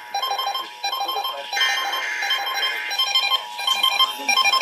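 Weather radio alert alarms beeping in quick repeating groups over a steady electronic tone, with several alerts for a severe thunderstorm watch sounding at once. A short burst of hissing noise comes about one and a half seconds in.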